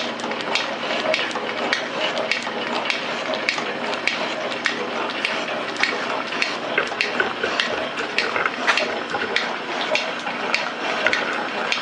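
Rhodes metal shaper running, its ram stroking back and forth as the tool bit takes cuts across a steam-chest casting. Steady mechanical clatter with a regular run of sharp clicks, a few a second.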